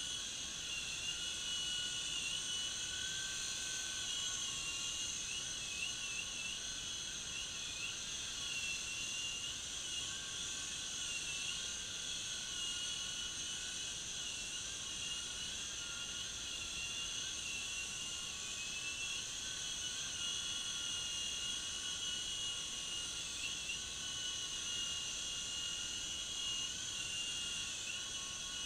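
U13A remote-control toy helicopter flying: a steady high-pitched whine from its small electric motors and rotor, wavering slightly in pitch.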